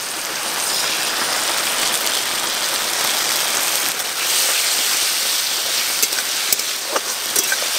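Onion, capsicum and tomato sizzling in hot oil in an aluminium wok, the sizzle swelling over the first second as tomato sauce goes in. A few spatula clicks and scrapes against the wok near the end.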